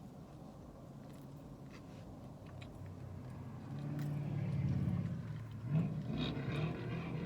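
A vehicle engine hums close by, swelling louder about halfway through and staying up to the end, over scattered faint chewing clicks.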